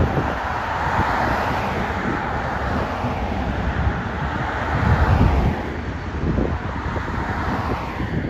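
Road traffic passing close by, with a car going by about halfway through, and wind buffeting the microphone.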